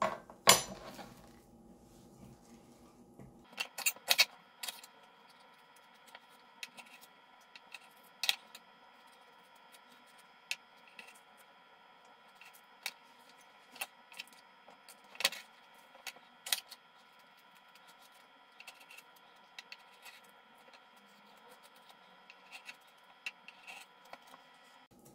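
Knife and hands working ripe plantains on a plastic cutting board: scattered sharp taps and knocks of the blade and fruit against the board, the loudest about half a second in, with soft handling noises between.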